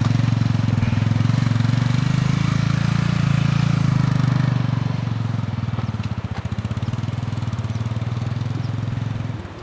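Small Chinese-made motorcycle engine running under way as the bike pulls off, loud and steady at first, then fading gradually from about halfway as it rides away.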